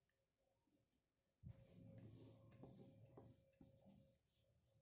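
A paintbrush stroking red paint onto a plywood board: faint, short scratchy brush strokes, a few a second, starting about a second and a half in.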